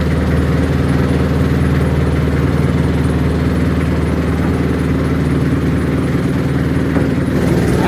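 A boat's engine running steadily at a constant speed.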